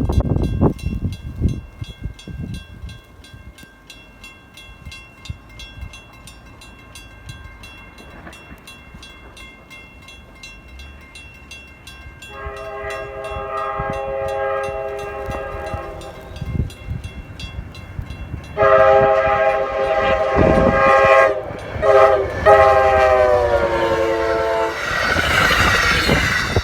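Diesel passenger locomotive's multi-tone air horn sounding a chord of several notes. The first blast comes about 12 seconds in, and a longer one starts a few seconds later with a couple of short breaks. The pitch of the horn drops as the locomotive passes, then the train rushes by. Wind buffets the microphone at the start.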